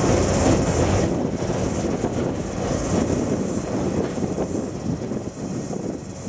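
Freight train of empty log wagons rolling over a rail bridge, a steady rumble and rattle that slowly fades as the last wagons pass and move away; the higher hiss drops off about a second in.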